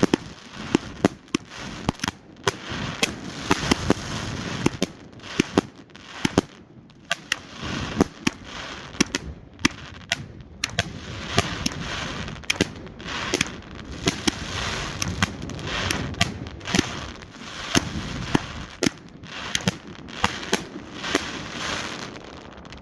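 A 2-inch, 66-shot compound firework cake firing shot after shot: two or three sharp, hard-hitting breaks a second, with crackle between them.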